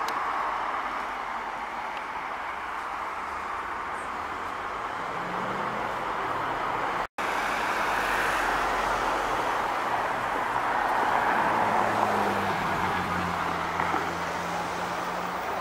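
Road traffic on a street, with a Ferrari's engine running at low revs as it drives past and pulls away, its steady note plainest in the last few seconds. The sound drops out for an instant about seven seconds in.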